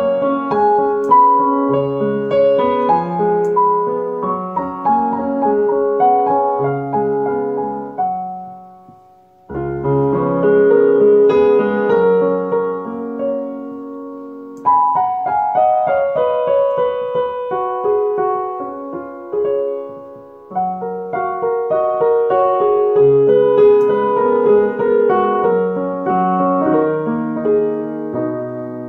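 Background piano music, played in phrases of struck notes, with a brief near-pause about nine seconds in.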